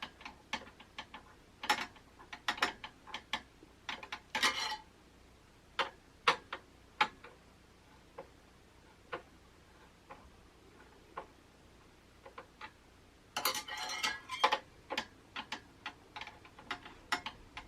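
Irregular small metal clicks and ticks of a screwdriver working the spring-loaded mounting screws of a Scythe Mugen 5 CPU cooler, tightening them evenly one at a time. The clicks come in a denser flurry about four seconds in and again near the end, sparse in between.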